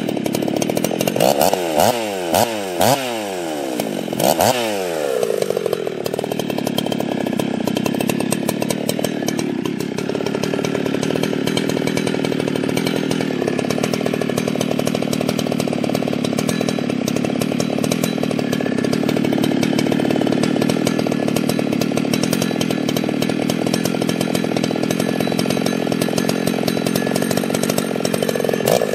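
Modified Husqvarna 61/272 two-stroke chainsaw blipped up to speed and let off several times, then held steady under load for about twenty seconds as it cuts into wood, with revving starting again near the end.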